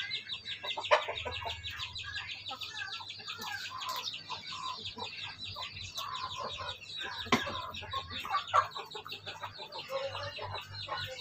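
Chickens clucking in short calls over a steady, rapid high-pitched chirping, with a sharp knock about seven seconds in.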